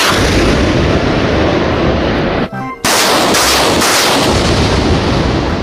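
Truck-mounted multiple rocket launcher firing a salvo: a loud, continuous rushing blast of launches that breaks off briefly about two and a half seconds in, then resumes and fades away near the end.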